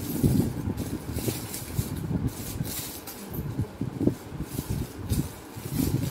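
A clear plastic packet crinkling in irregular spells as it is handled and turned over, over a low, uneven rumble.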